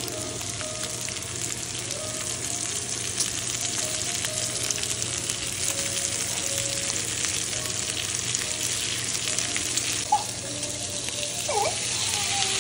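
Lima beans, bacon and onion sizzling steadily in a hot frying pan, a continuous crackle of frying fat, with one sharp knock a little after ten seconds.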